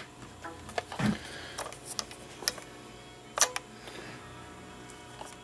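Scattered sharp clicks and a few duller knocks of a hard plastic handheld RC-transmitter-style controller being handled.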